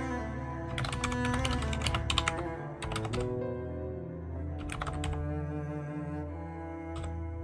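Typing on a computer keyboard in several short bursts of quick key clicks, over cello music with long held notes.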